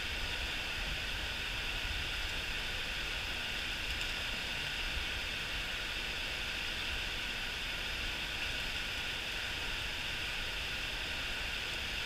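Mountain stream water rushing over rocks: a steady, even hiss with a low rumble underneath.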